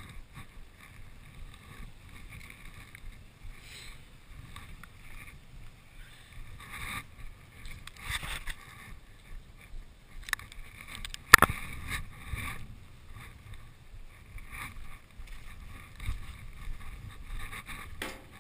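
Low wind rumble and handling noise on a helmet-mounted action camera, with scattered rustles and a few sharp knocks, the loudest about eleven seconds in.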